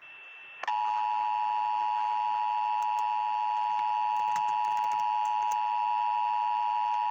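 Emergency Alert System two-tone attention signal (853 and 960 Hz sounded together), starting under a second in and holding as one steady, harsh tone. It is the signal that an emergency alert voice message, here a National Weather Service flood warning, is about to follow.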